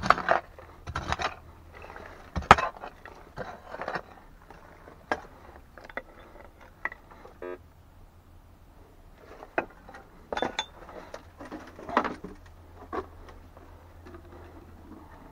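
Irregular knocks, scrapes and clinks of a hand tool working loose stones and rubble, the sharpest knock about two and a half seconds in. A few short electronic beeps from a metal detector come in the middle and latter part.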